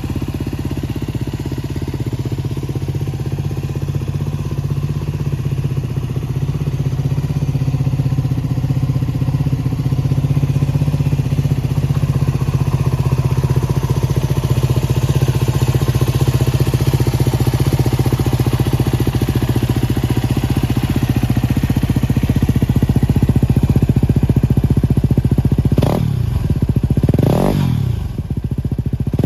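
Yamaha WR250X's 250 cc single-cylinder four-stroke engine idling steadily through an aftermarket SP Tadao P-BOX pipe and FMF silencer. Near the end the throttle is blipped three times, each rev rising sharply and dropping quickly back to idle.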